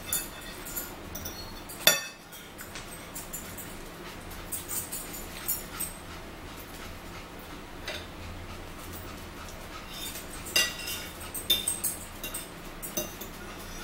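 Metal forks clinking and scraping on plates while eating, in scattered sharp clicks. The loudest clink comes about two seconds in, with a run of quicker clinks near the end.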